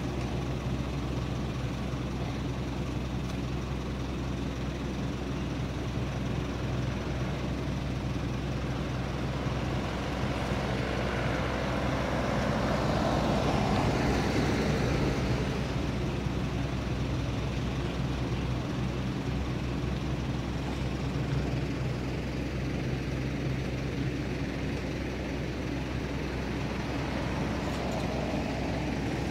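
Steady background rumble of road traffic with a low hum. Midway it swells louder for a few seconds and fades again, as a vehicle passes.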